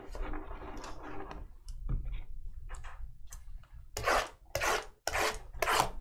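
Cardboard trading-card boxes being handled: cardboard sliding and rubbing against cardboard, with several louder scraping strokes in the second half.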